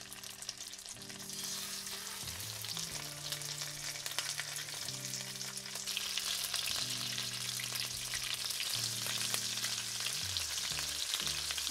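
White fish fillets frying skin side down in melted butter and oil in a pan: a steady sizzle full of small crackles and pops, growing stronger about six seconds in.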